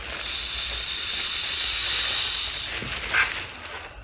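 A long steady hiss of vapour being drawn in through a Volcano vaporizer balloon's valve mouthpiece, lasting about two and a half seconds, then a short breathy puff about three seconds in.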